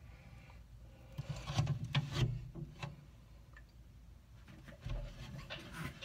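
Bearded dragon scratching and rubbing as it moves in its glass terrarium: a run of scratchy rubs and clicks about a second in, and a few more near the end.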